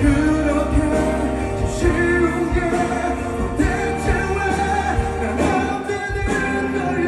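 Live pop ballad performed by a band through a concert sound system, with drums keeping a steady beat under a male singer's voice.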